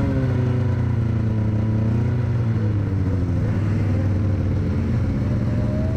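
Snowmobile engine running under way, heard from on board the sled, its pitch rising and falling a little as the throttle eases and opens.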